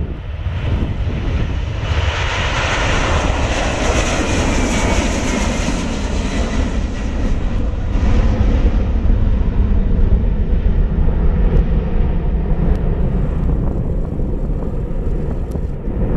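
A Boeing 767-400ER's two turbofan engines at takeoff thrust as it lifts off and climbs away: a loud jet roar with a whine that falls in pitch a few seconds in. After about seven seconds the higher part fades, leaving a low rumble.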